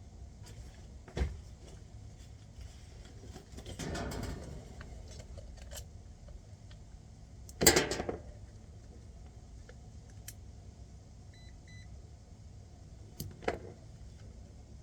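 Handling of tools and equipment: a sharp knock, a scraping rustle, then a loud clattering clank about eight seconds in and another knock near the end, with a couple of faint short electronic beeps in between.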